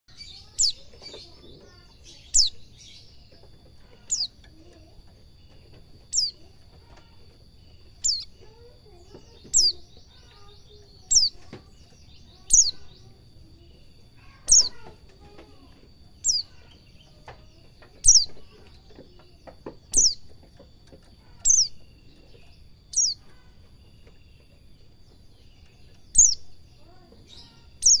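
White-eye (pleci) giving a short, sharp, high call that sweeps downward, repeated about every one and a half to two seconds. It is a young pleci still learning its song.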